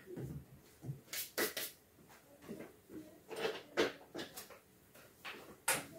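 Kitchen handling noises: a string of short knocks, clicks and rustles, with several sharper clacks, as things are moved about and set down.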